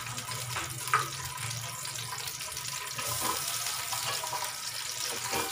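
Sliced onions going into hot cooking oil in an aluminium pot, with a steady sizzling hiss and a few light clicks of a metal slotted spatula against the pot.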